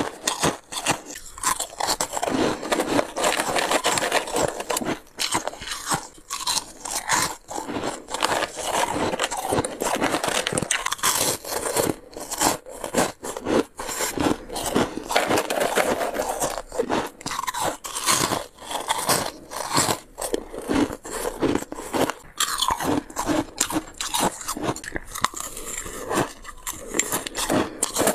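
Crisp crunching of freezer frost being bitten and chewed, a quick, dense run of crunches with only brief pauses between mouthfuls.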